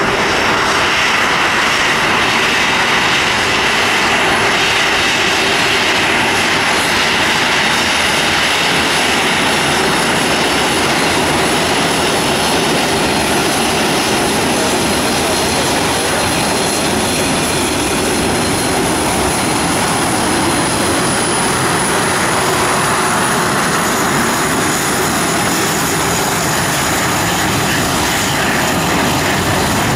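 Twin CFM56 jet engines of a Boeing 737 Classic airliner running at taxi power as it taxis close past, a loud, steady rush with a high whine over it.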